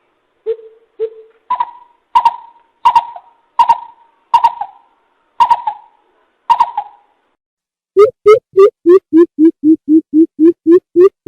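Greater coucal (bìm bịp) calling: a few single deep hoots, then a slower series of higher, harsher notes, each starting with a sharp click. From about eight seconds in comes a fast, even run of deep hoots, three or four a second.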